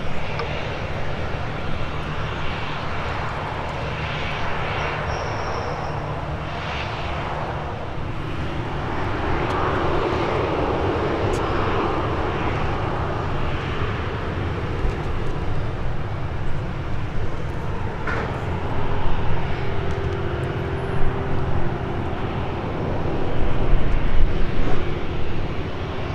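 The jet engines of a Boeing 737-800 running at taxi power as the airliner rolls slowly after landing: a steady rush with a low hum underneath. A faint steady tone joins in past the middle, and the sound swells a little near the end.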